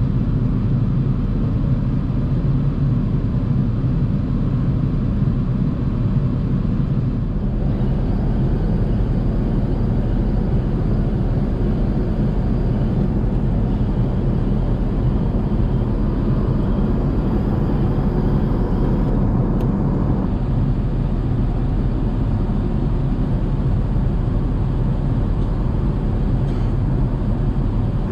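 Steady low rumble of cabin noise inside an Airbus A380 at cruise: engine and airflow noise heard from a passenger seat.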